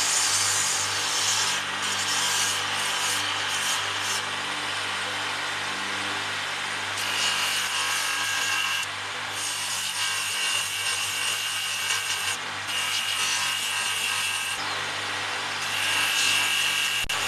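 Bench motor-driven drum sander running, with bamboo pieces pressed against the spinning abrasive sleeve: a steady motor hum under a grinding rasp. A higher whine comes and goes several times in the second half as the wood is pressed on and eased off.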